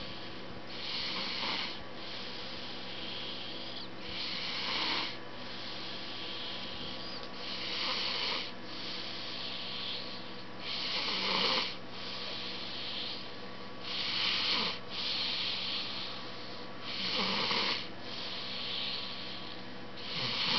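Snoring: slow, regular snores about every three seconds, each a hissing rasp lasting under a second, with quieter breathing in between.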